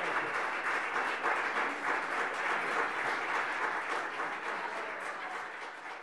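Audience applauding, a dense steady clapping that gradually fades toward the end.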